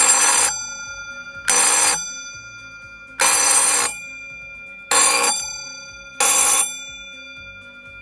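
Large electric gong bell of a homemade burglar alarm ringing in five short bursts, its clapper hammering rapidly for about half a second each time as the clothespin trip switch closes the circuit. The gong's tone hangs on and fades between bursts.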